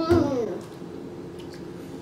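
A toddler's short sing-song voice sound, rising then falling in pitch over about half a second at the start, then only a faint steady hum.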